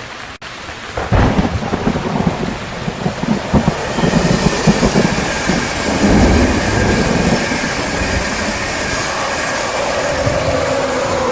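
Thunderstorm: a thunderclap breaks about a second in and rolls and crackles for several seconds over the steady hiss of heavy rain.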